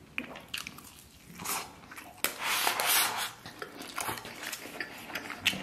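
Close-miked eating sounds: chewing on a piece of braised lamb rib, with scattered small clicks and smacks and a longer noisy stretch about halfway through.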